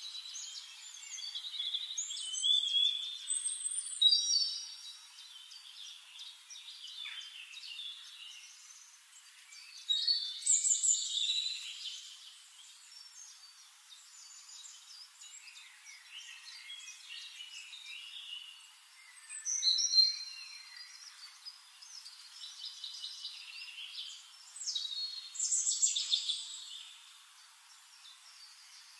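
Birds chirping and trilling, several high calls overlapping, swelling loud four times and dropping back between.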